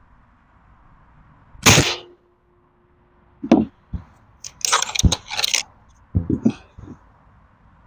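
A .22 Gamo Speedster Gen 2 break-barrel air rifle firing one shot about two seconds in, with a short ringing tone after the crack. Then a run of clicks and clacks as the rifle is handled between shots.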